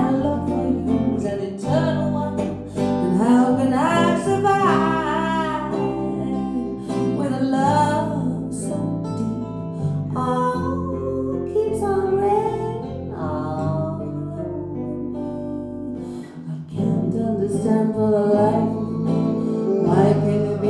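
Small band playing a soul ballad: acoustic guitar and a bass line holding chords, with a wavering, bending melody line on top.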